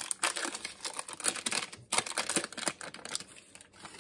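Paper butter wrapper crinkling and rustling as a stick of butter is peeled out of it by hand, a quick run of crackles that thins out near the end.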